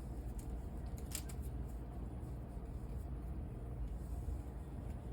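Steady low room hum, with a few faint short taps or clicks near the start and about a second in.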